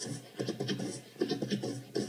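Beatboxing: rhythmic percussion made entirely with the mouth and voice, short hissing hi-hat-like sounds over low hits, run through audio processing.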